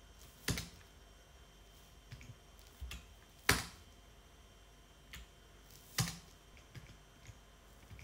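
Computer keyboard keys pressed one at a time, a few separate sharp clicks a second or so apart. The three loudest come about half a second in, in the middle and about six seconds in.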